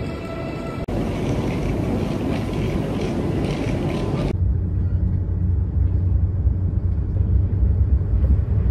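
Busy station platform ambience with a broad, even noise, then a cut at about four seconds to the deep, steady rumble of a passenger train's interior, which grows louder toward the end.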